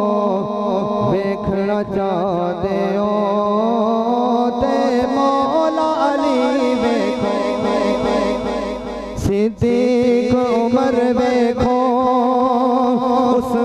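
A man singing a Punjabi naat into a microphone, drawing out long, wavering, ornamented notes. A single sharp pop cuts in about nine seconds in.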